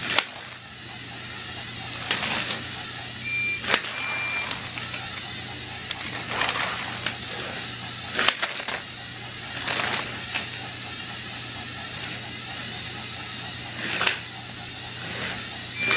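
Battery-powered toy trains running on plastic track: a steady motor hum with intermittent clatters and knocks, about eight in all, plus a few short high beeps.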